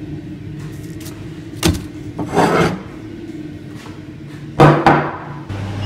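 Two knocks, each followed by a short scrape, from things being handled on a wooden desk.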